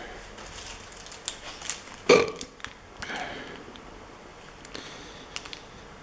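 A short, loud vocal noise from the person about two seconds in, with a fainter one about a second later, over small clicks and rustles of a plastic bag of PC screws being handled.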